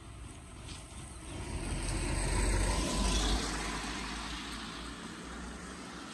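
A vehicle passing by: a low rumbling noise that swells, peaks about two to three seconds in, and fades away.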